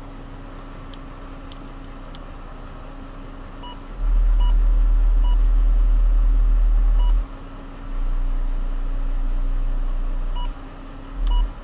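Two 12-inch car subwoofers playing a deep bass test tone of about 39 Hz in bursts: a loud one about four seconds in lasting some three seconds, a softer one about two and a half seconds long after it, and a short blip near the end. Short electronic beeps from the head unit's touch buttons sound between them.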